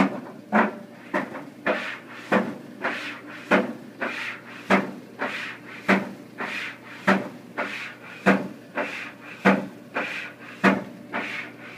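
An iPhone tumbling in a running clothes dryer, knocking against the drum about every 0.6 s over the dryer's steady hum.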